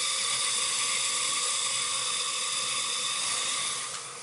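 A running hot-water heating system, boiler and circulator pump, gives a steady hiss with a faint hum of steady tones, easing off slightly near the end. It has no gurgle or rattle: with the circulator repiped, the pump is no longer drawing in air.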